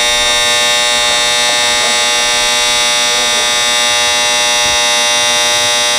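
Loud electric buzzer sounding steadily without a break, a harsh buzz with many overtones, with faint voices beneath it.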